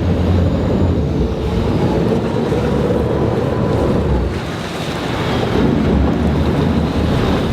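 Wind buffeting the microphone on a moving sport-fishing boat, over steady water noise and a low rumble, with a brief lull about halfway through.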